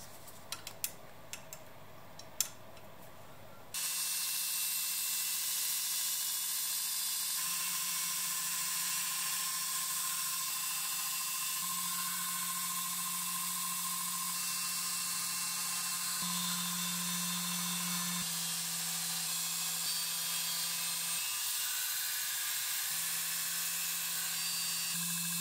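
A few small metal clicks as the blade is fitted in a steel grinding jig, then, about four seconds in, a belt grinder running steadily with a steel knife blade pressed against the abrasive belt, a steady hiss of grinding over the motor's hum.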